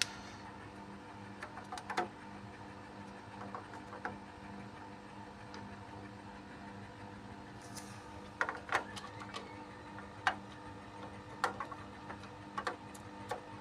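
Faint, scattered small clicks and taps of a desktop CPU being handled and positioned at its motherboard socket, several in quick succession past the middle, over a steady low hum.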